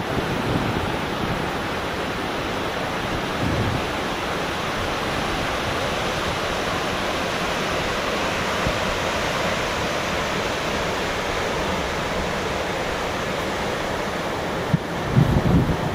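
Ocean surf breaking and washing in, heard as a steady rush of noise. Near the end, wind starts buffeting the microphone in low gusts.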